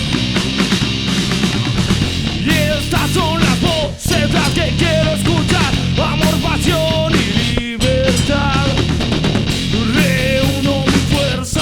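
Live rock band playing an instrumental passage: distorted guitars, bass and drum kit. A lead melody that bends in pitch comes in about two seconds in, and the band briefly cuts out twice, near four seconds and near eight seconds.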